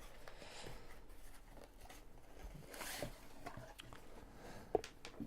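Packaging of a battery charger being opened by hand: two soft sliding, rustling swells, with a sharp click about three-quarters of the way through.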